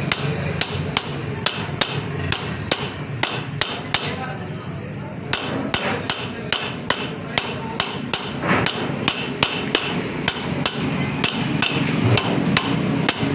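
Steady hammering on a metal part, about two to three blows a second, with a short pause a little before the middle, over a steady low hum.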